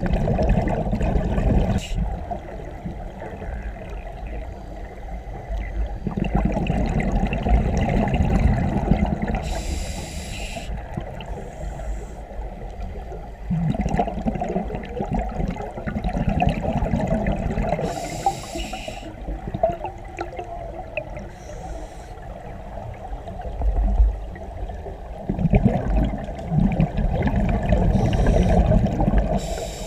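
Scuba diver breathing through a regulator underwater. Each breath is a short sharp hiss on the inhale, then a long bubbly rush as the exhaled air vents from the regulator, repeating every several seconds.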